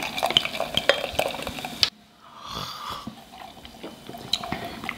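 Sparkling plum and white grape juice pouring from a bottle into a stemless wine glass, fizzing and crackling with small clinks; it cuts off abruptly about two seconds in. Fainter sipping through plastic straws follows.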